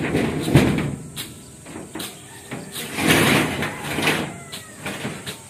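Shovel scraping and digging into fill soil in irregular strokes, with sharp knocks; the loudest scrapes come about half a second in and again around three to four seconds in.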